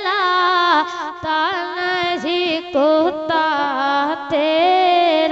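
A child singing a naat in Urdu, drawing out long held notes with ornamented turns and slides.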